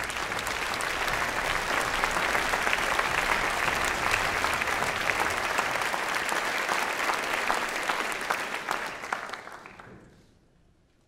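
Audience applauding with many hands clapping. The applause dies away about ten seconds in.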